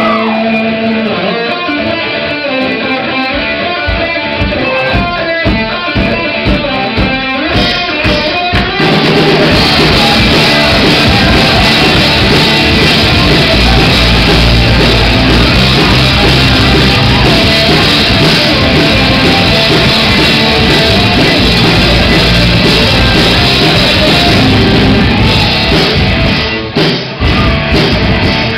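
Rock band playing live: electric guitars, bass guitar and drum kit. It opens with a lighter guitar-and-drums part, the full band comes in loud and dense about nine seconds in, and there are a few short stops near the end.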